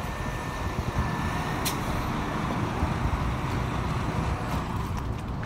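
West Midlands Railway Class 172 Turbostar diesel multiple unit passing on the line below, giving a steady low running noise from its underfloor diesel engines and wheels on the track.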